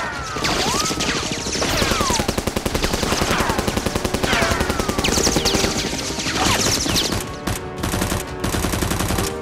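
Dubbed-in machine-gun fire sound effects: rapid shots with several ricochet whines that glide down in pitch.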